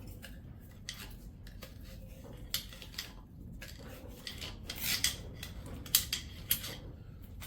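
Metal tools clinking and rattling with scattered sharp clicks and rustles, as hand tools are rummaged through and handled.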